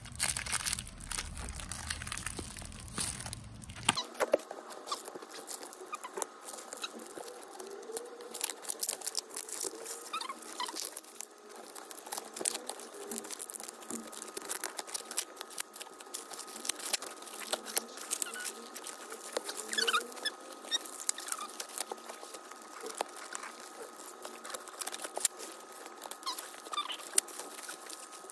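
Plastic wrapping crinkling and tearing in quick, irregular crackles as it is picked open around a book, sped up.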